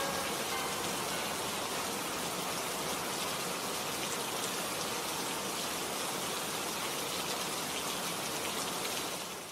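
A steady, even rushing hiss, like heavy rain, that begins to fade near the end.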